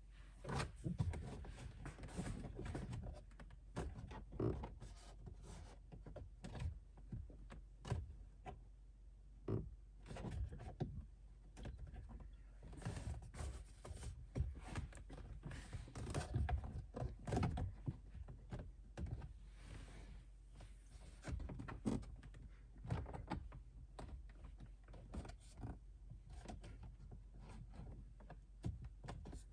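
Plastic interior trim panels of a pickup's cab being handled and worked at their retaining tabs by hand: irregular clicks, taps and soft thumps of hard plastic, busiest about halfway through.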